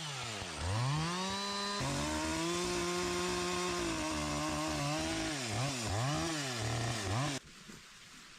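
Two-stroke chainsaw cutting entrance and vent notches into a pine log. The engine speed drops and picks up again several times, with a steady high stretch in the middle, and the sound cuts off suddenly near the end.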